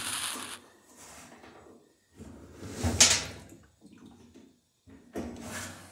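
Rustling, scraping and clunking of parts being handled in three short spells, the loudest about three seconds in.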